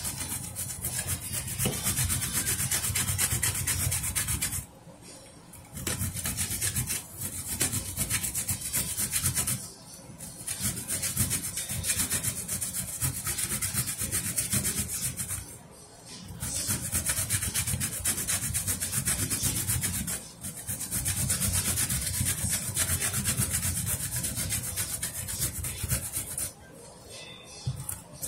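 Zucchini being grated by hand on a flat stainless-steel grater: a fast, steady run of rasping strokes, broken by brief pauses every few seconds.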